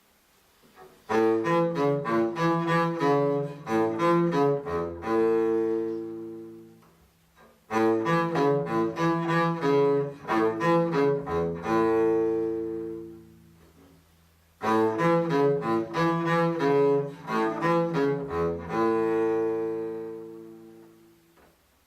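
NHK emergency broadcast chime played in a low register. Three times over, a quick run of short notes ends on a held chord that fades out.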